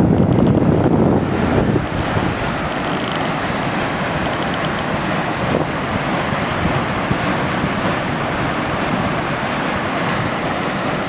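Steady rushing of a waterfall, with wind buffeting the microphone, heaviest in the first two seconds.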